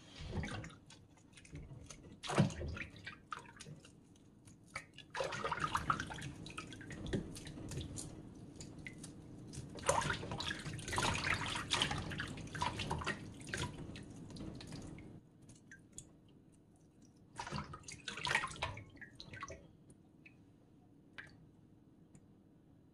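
Hands swishing and rubbing sator beans in a steel bowl of water, splashing and dripping in bouts for about fifteen seconds. After that come a few drips and small splashes as single beans are lifted out.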